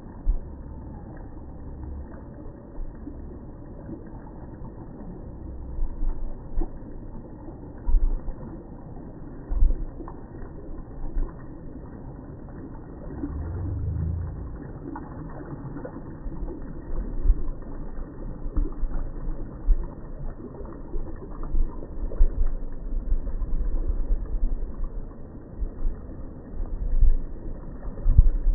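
Wind buffeting the microphone in gusts, low rumbling thumps that come more often in the second half, over a faint steady noise of moving water.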